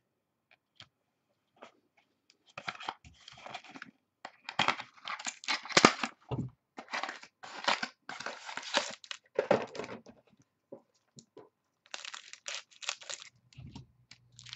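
Trading card pack wrappers being torn open and crinkled by hand, with cards slid out, in irregular bursts of tearing and rustling. They start about two seconds in, with a pause near the ten-second mark before another burst.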